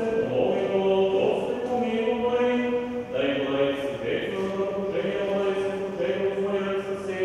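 Orthodox liturgical chanting during a christening service: voices singing a continuous chant on held notes that step from pitch to pitch.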